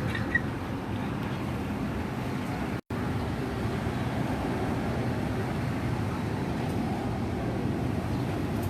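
Steady low rumble of an airplane passing overhead, with the audio cutting out for a split second about three seconds in.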